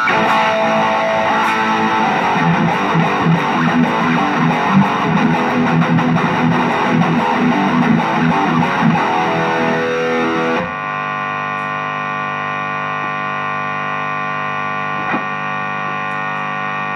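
Electric guitar played through the high-gain Channel 2 of a Blackstar HT-Metal pedal, heavily distorted, for about ten seconds. Then the playing stops and a loud, steady buzzing hum from the pedal holds on. This is the noise on Channel 2 that buyers took for a fault, described as "very จี๋" (very noisy).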